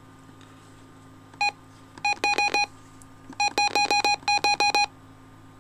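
Key beeps from a radio receiver's keypad as its buttons are pressed to step through frequencies by hand. There is a single short beep, then a quick run of about five, then a longer run of about a dozen, all at the same pitch.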